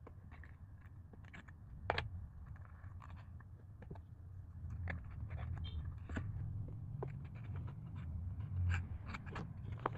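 Paper 3D jigsaw model pieces being handled and slotted together: scattered light clicks, scraping and rubbing, with a sharp tap about two seconds in and another near the end.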